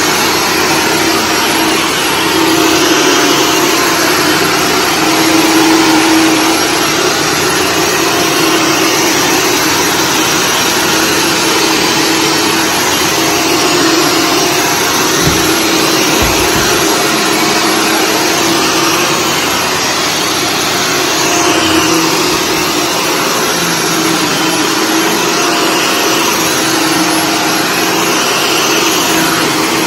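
Shark Stratos corded upright vacuum running steadily with its brushroll on carpet, a constant hum with a low tone running through it. A couple of low thuds come about halfway through.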